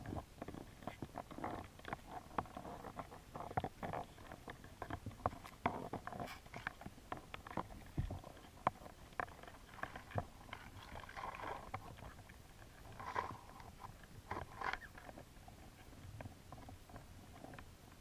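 Irregular clicks, taps and scrapes, heard underwater through a camera housing, as American signal crayfish move their claws and legs over a plastic mesh trap. Busier stretches of clicking come in the first half and again about two-thirds of the way in.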